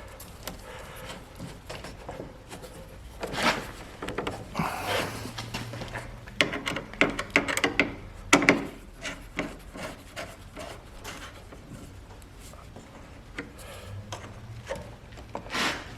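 Hard plastic of a car headlight assembly scraping, rubbing and knocking as it is worked and aligned into place in its mounting, with irregular clicks and scrapes.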